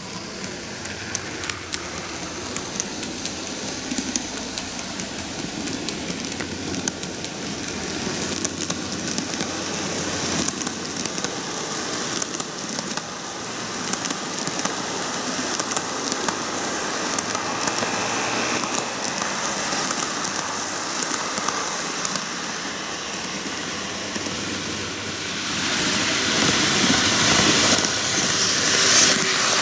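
TOMIX N-gauge model trains, an Odakyu 50000 VSE and a 4000 series, running on curved track: a steady rattling rumble of wheels and motors with many fine clicks. It grows louder, loudest near the end.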